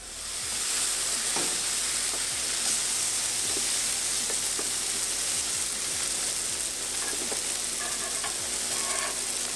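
Meatless burger and chicken-style patties sizzling steadily on a hot gas flat-top griddle, a dense frying hiss that rises quickly at the start.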